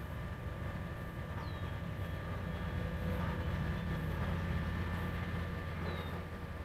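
Electric RC airplane motors droning steadily overhead, a thin high whine over a low rumble, with two faint short falling whistles, one about a second and a half in and one near the end.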